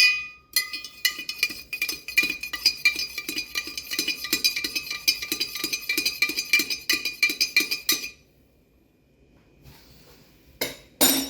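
A metal spoon stirring coffee in a ceramic mug, clinking quickly and evenly against the sides while the mug rings, for about eight seconds. Near the end come two sharp knocks, like the spoon tapped on the rim.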